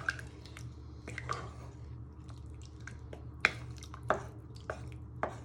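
A spoon stirring a wet sauce of chopped tomatoes and chicken stock in a pan on the hob: soft squelching with scattered clicks, and a couple of sharper knocks of the spoon against the pan about three and a half and four seconds in.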